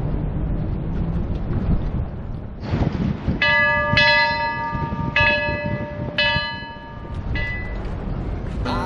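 A brass ship's bell on a submarine's conning tower, rung by its lanyard about five times at roughly one-second intervals, each stroke ringing on with a clear tone, the last one weaker. A steady low wind rumble on the microphone lies under it.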